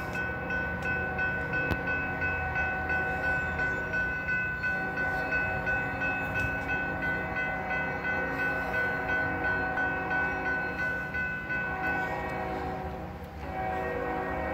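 Diesel freight locomotive's air horn sounding a long held chord of several tones from an approaching train. It breaks off briefly about thirteen seconds in, then sounds again.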